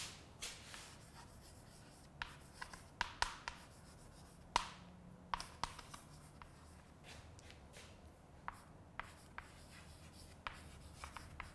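Chalk writing on a blackboard: quiet, irregular taps and short scratching strokes as letters are formed, a few sharper taps a few seconds in.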